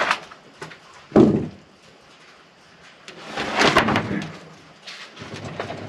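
Freshly sawn hemlock board being handled off the sawmill: a sharp knock at the start, a heavy wooden thump about a second in, then a longer rough scraping noise around three to four seconds in.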